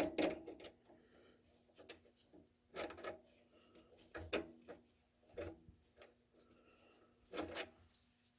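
A 6-32 tap and small adjustable wrench being handled: about nine brief, irregular scrapes and light knocks of small metal tools, over a faint steady hum.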